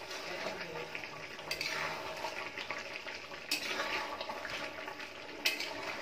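Chicken curry sizzling on a high flame in a large metal kadhai while a metal ladle stirs it, scraping against the pan about every two seconds. The sizzle is the sauce being cooked down to dry off its water.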